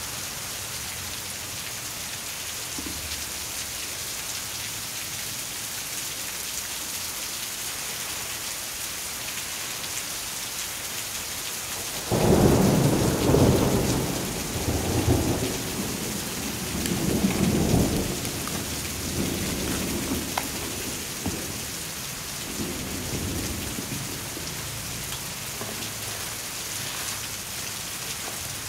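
Steady rain falling. About twelve seconds in, a long roll of thunder rumbles in several swells and fades over roughly ten seconds.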